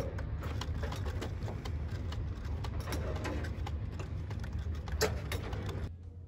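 Portable sewing machine stitching repairs into a sailboat's mainsail, running in a fast, even chatter of needle strokes with scattered clicks. It stops abruptly near the end.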